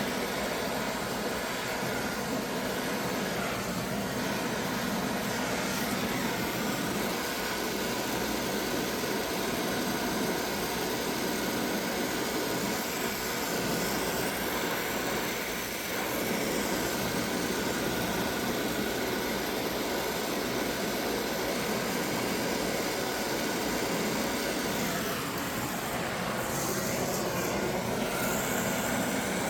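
Brazing torch flame burning steadily with an even hiss as a copper joint is heated.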